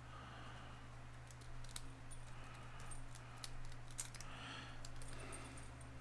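Triple-rake lock pick worked in a padlock's keyway against a tension wrench: faint, irregular metallic clicks and scrapes as the rake runs over the pin tumblers.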